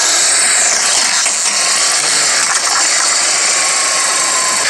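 Steady, loud hissing noise with no breaks, and a faint steady tone under it near the end.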